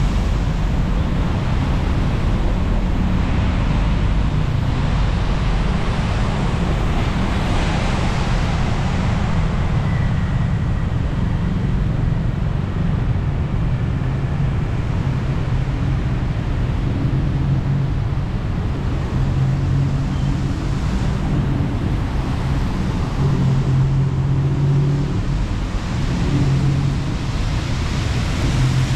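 Steady road traffic on a wet street: cars and motorbikes passing with tyre hiss on the wet surface and a constant low engine rumble, swelling as vehicles go by.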